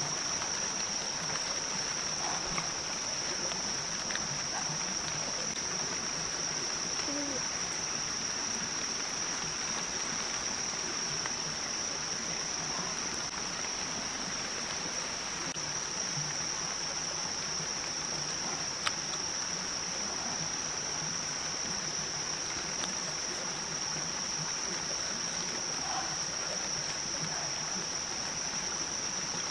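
Steady, high-pitched insect chorus of the tropical forest, one unbroken drone over a constant hiss, with a sharp click a little under two-thirds of the way through.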